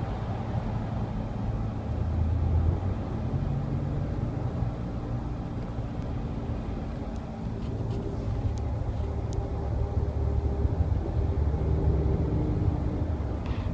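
Steady low humming and buzzing drone of a 2013 Nissan Pathfinder heard from inside the cabin while cruising, with a higher hum that comes and goes over it. It is a noise the owner says started only recently, after about 35k, and does not know the cause of.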